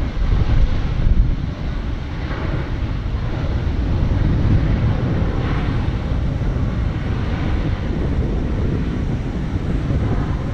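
Distant jet engine noise from a Solaseed Air Boeing 737-800 rolling out on the runway just after touchdown, mixed with heavy wind rumble on the microphone.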